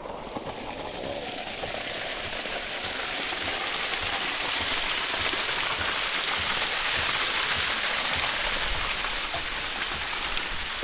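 Waterfall water pouring down close by, a dense, steady rushing hiss that grows gradually louder over the first few seconds and then holds.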